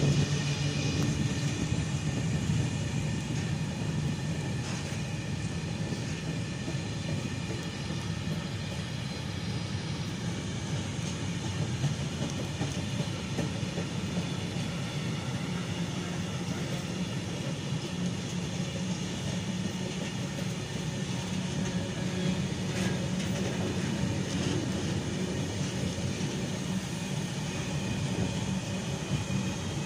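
A long freight train of high-sided open wagons rolling past at close range: a steady, unbroken rumble of steel wheels on the rails.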